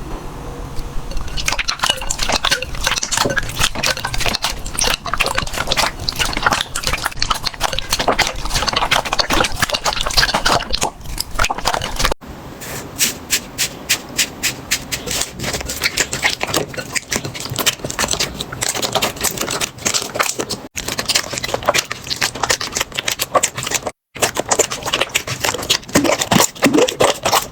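Slime being worked, a dense, irregular run of small sticky clicks and crackling pops, broken by three abrupt cuts between clips.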